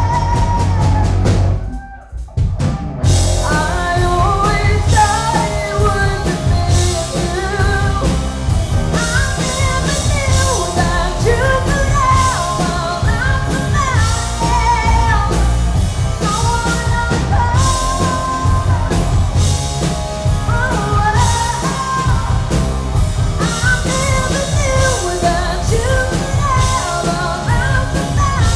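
Live rock band playing: a woman singing over electric bass, two electric guitars and a drum kit. The band stops dead for about a second about two seconds in, then comes back in.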